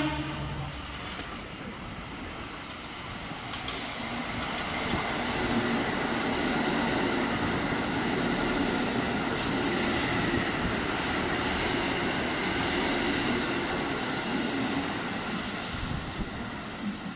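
KiHa 85 series diesel railcar train running past at speed: a steady rumble of wheels on rail and diesel engine drone that grows louder over the first few seconds, with a few brief high squeals from the wheels.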